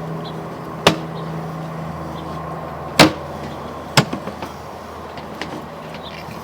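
Steady low mechanical hum with three sharp knocks, about one, three and four seconds in, the middle one the loudest.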